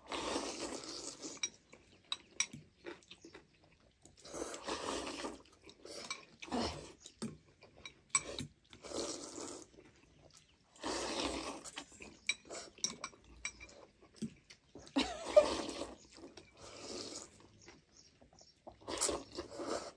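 Two people slurping thukpa noodles from bowls, with repeated noisy slurps of a second or so. Between the slurps, forks give short clinks against glass bowls.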